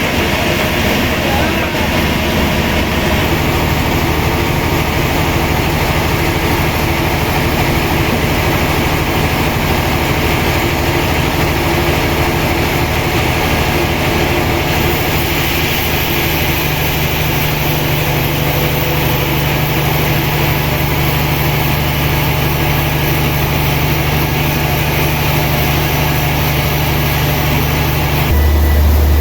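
Sawmill machinery running steadily with a deep hum. Near the end the higher noise drops away and the low hum grows louder.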